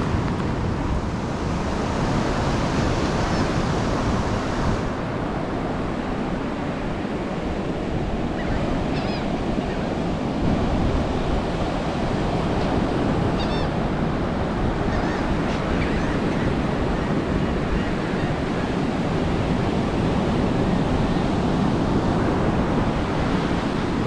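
Ocean surf breaking and washing up the beach in a steady rush, with wind on the microphone and a few short, high gull calls.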